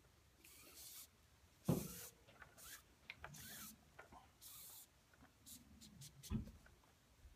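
Cord being drawn through a braided knot on a mandrel: a series of soft swishing rubs as the cord slides through the pattern. There are two soft knocks, one about two seconds in and one near the end.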